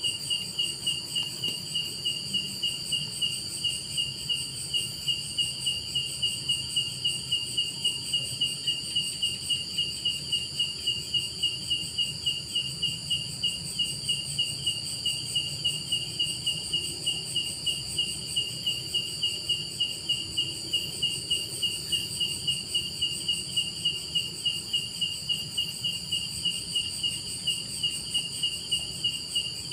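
Insects calling at night: one chirps in a steady, even pulse of about three a second, over a constant high-pitched buzz from others.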